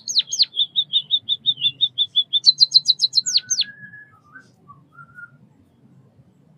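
White-headed munia (Lonchura maja) singing. It opens with two sharp downward-sweeping notes, runs into a fast string of short chirps, then gives a few higher notes and two more downward sweeps. About four seconds in the song trails off into a few fainter, lower notes.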